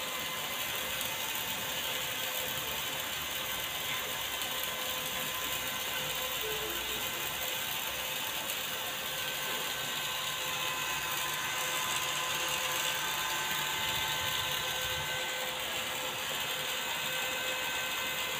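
Crown CT33123 inverter welding machine switched on and idling, its cooling fan running: a steady whirring hiss with a few faint steady tones and a low hum.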